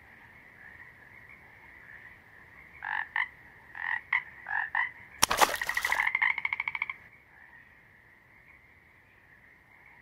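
Frogs croaking: a run of short croaks a few seconds in, then one louder, longer pulsed croak lasting almost two seconds, over a faint steady high-pitched chorus.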